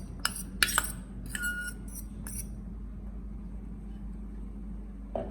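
Muskmelon pieces being added to a glass bowl: about six light clinks of a utensil against the glass in the first two and a half seconds, one ringing briefly. Then only a low steady hum.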